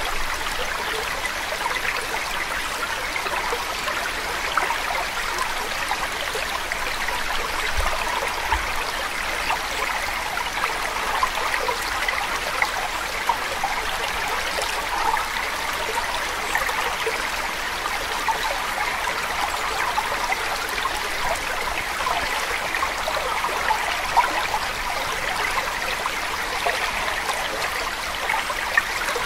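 Steady running water, like a babbling stream, with an even flickering rush. It is the background layer of a subliminal affirmations track.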